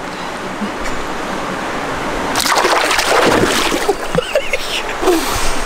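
Running river water over rocks, with a burst of splashing in the shallows about two and a half seconds in that lasts over a second, as a cutthroat trout is released at the water's edge.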